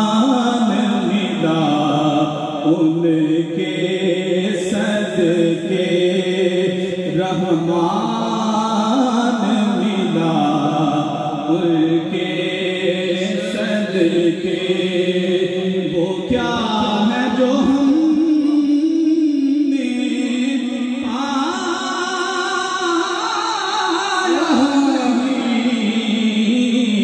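A man singing a naat solo into a microphone, in long held, wavering melodic lines, with no instruments.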